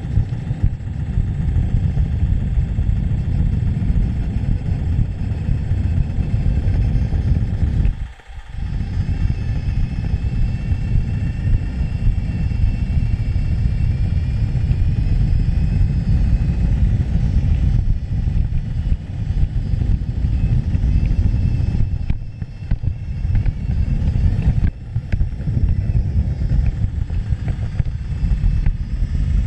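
Steady low rumble and clatter of a large-scale garden model railway wagon's wheels rolling over the track, heard through a camera riding on the wagon itself. The rumble briefly drops away about eight seconds in, and a faint high whine sits over it for a while after that.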